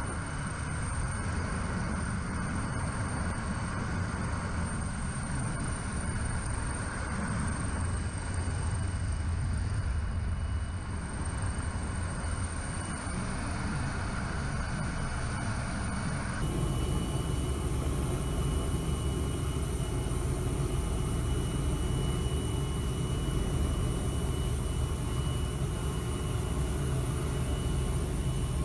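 Helicopter cabin noise: a steady, heavy rumble of rotor and engines with a thin high whine above it. Roughly halfway through the sound shifts abruptly, becoming louder and brighter.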